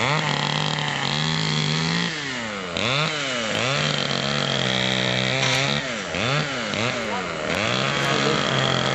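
Chainsaw running and cutting, its engine pitch sagging and recovering several times as the chain takes and leaves the cut.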